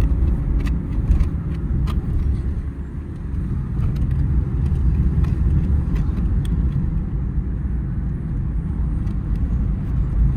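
A steady low rumble like a moving car, with a few light clicks scattered through it.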